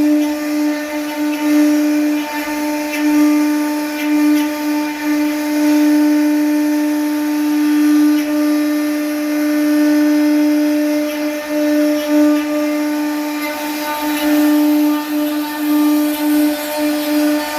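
CNC router spindle running with a steady high whine while its bit cuts wood, the rasp of the cut swelling and easing as the tool moves.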